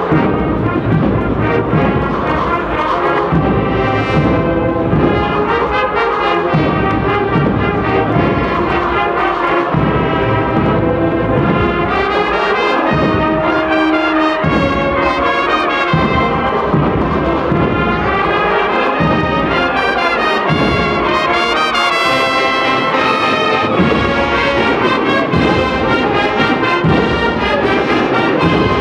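Agrupación musical, a Spanish Holy Week band of cornets, trumpets and trombones with drums, playing a procession march: full brass melody over a steady drum rhythm.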